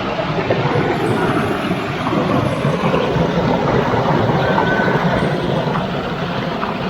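Steady rush of a high waterfall: a continuous, even noise of falling water.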